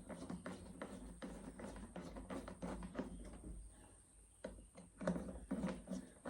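Screwdriver and small parts being handled while the two screws of a motorcycle petcock are fitted to the fuel tank: faint, irregular small clicks and scrapes.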